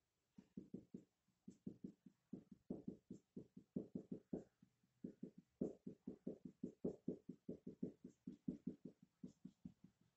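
Marker pen tapping and scratching on a whiteboard in quick short strokes, about four or five a second, as the division marks of a scale are ticked off one by one.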